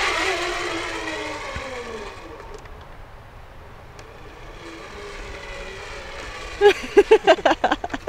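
Tarzan-rope zip line trolley rolling along its steel cable: a whirring hum that falls in pitch and fades over the first two seconds as the rider slows, followed by a faint hum. Near the end comes a rapid run of short, sharp sounds.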